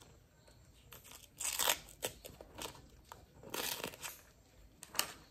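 Printed wrapper of an ice-cream cone being peeled and torn off by hand, crinkling and ripping in a few short bursts, the loudest about a second and a half in and again past three and a half seconds.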